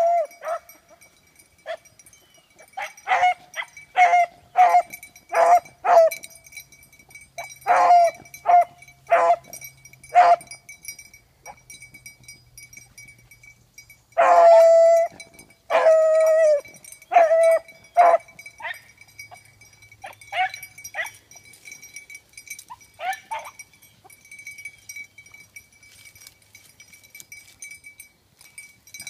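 Beagles baying as they work a scent: a run of short repeated barks, with two longer drawn-out bawls about fourteen and sixteen seconds in, thinning to a few faint barks and dying away after about twenty-three seconds.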